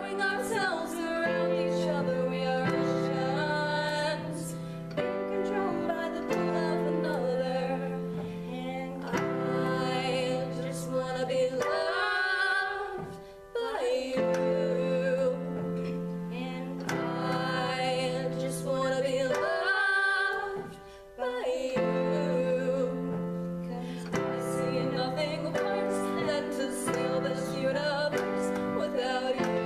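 A slow ballad with female vocals over sustained chords on a Yamaha Clavinova digital piano. The chords change every couple of seconds, and the accompaniment drops out briefly twice while the voice holds on.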